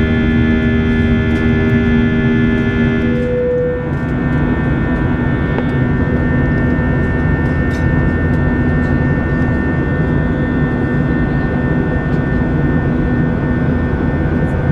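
Steady jet airliner cabin noise of an Airbus A321-200 in flight. A steady electrical hum runs over it and cuts off about three and a half seconds in.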